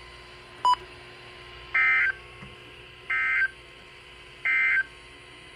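Three short, identical bursts of Emergency Alert System SAME data tones from a NOAA Weather Radio broadcast, about a second and a half apart: the end-of-message code that closes the Required Weekly Test. A brief click comes just before the first burst.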